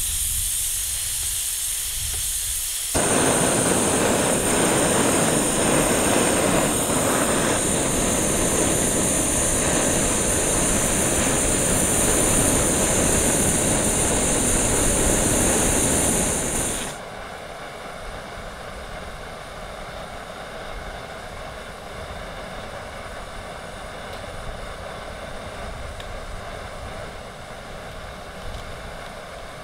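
Backpacking canister stove: gas hisses from the opened valve, then about three seconds in the burner lights and runs with a loud steady rush that cuts off suddenly after about 17 seconds, leaving a much quieter steady outdoor background.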